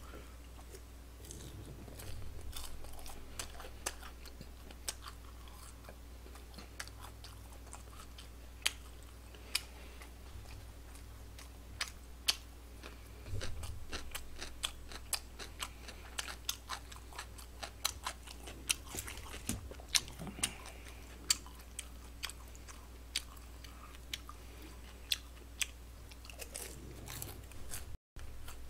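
A person chewing food close to the microphone: irregular sharp wet mouth clicks and smacks, a few louder stretches of chewing between them.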